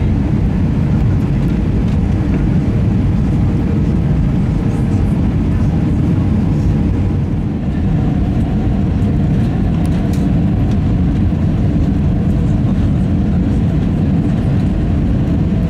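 Steady low rumble of cabin noise inside an Airbus A320 descending on approach, heard from a window seat over the wing: engine and airflow noise, dipping slightly for a moment about halfway through.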